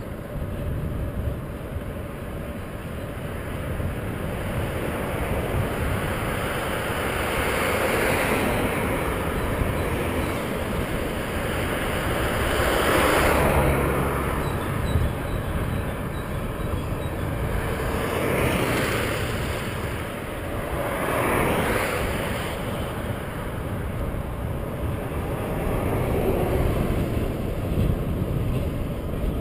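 Wind buffeting the microphone during a bike ride along a highway, with cars passing. Their tyre and engine noise swells and fades four times, loudest about halfway through.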